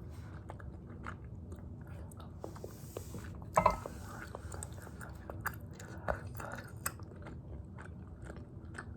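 Close-miked chewing of spicy tteokbokki, with wet mouth clicks and smacks throughout and a louder bite or mouth sound about three and a half seconds in.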